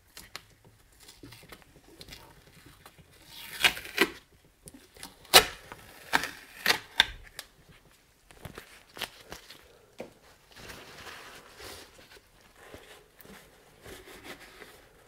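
Tape ripped off the top of a steel fuel tank: a series of sharp tearing rips between about three and a half and seven seconds in, then softer rustling of a paper shop towel.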